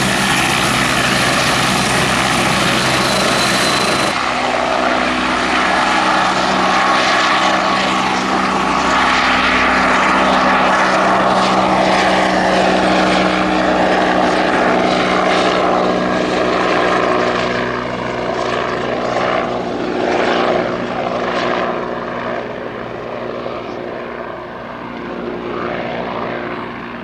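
Westland Wasp HAS Mk.1 helicopter, its Rolls-Royce Nimbus turboshaft whining and its rotor beating, as it hovers and then flies away. A tone in the engine sound drops in pitch about two-thirds of the way through as it moves off, and the sound grows fainter near the end.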